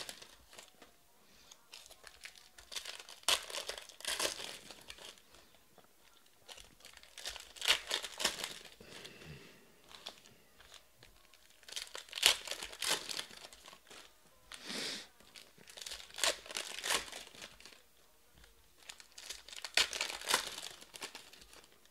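Foil wrappers of Panini Prizm baseball card packs crinkling and tearing as the packs are ripped open. The sound comes in separate bursts every few seconds, with quieter handling between.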